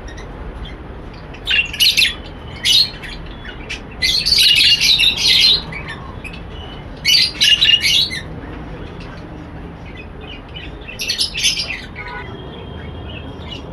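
Flock of small pet parrots (lovebirds and budgies) calling in shrill chirps and squawks. The calls come in about five bursts, the longest lasting over a second, separated by quieter gaps.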